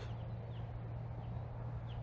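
Quiet outdoor ambience: a steady low hum under faint background noise, with a few faint, short bird chirps.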